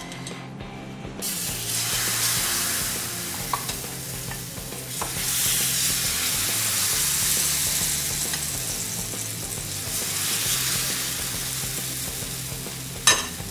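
Gram-flour (besan) batter sizzling as it is ladled onto a hot oiled pan and spread out with a steel ladle. The sizzle starts about a second in and swells and eases as more batter goes on. A sharp click comes near the end.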